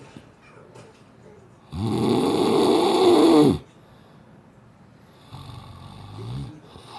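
A sleeping man snoring: one loud snore of about two seconds, starting nearly two seconds in, then a weaker snore near the end.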